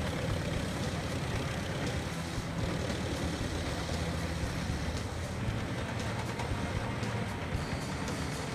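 Lippel Raptor 700 drum wood chipper with its own engine, running steadily.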